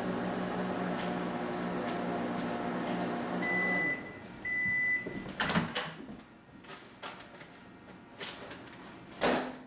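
Microwave oven running with a steady hum that stops about four seconds in, followed by two high beeps as the cycle ends. Then come a sharp knock and, near the end, another, like the door being opened and handled.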